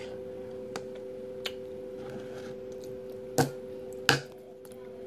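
A child's spoon clicking against a soup bowl: a couple of faint taps, then two louder knocks in the second half, over a steady low electrical hum.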